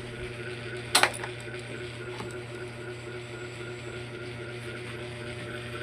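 A single sharp click about a second in, over a steady low hum; the engine is not yet running.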